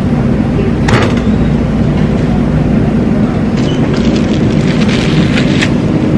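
Steady loud low rumble, with a few light knocks as bagged groceries are set down in a shopping cart, one about a second in and another near the end.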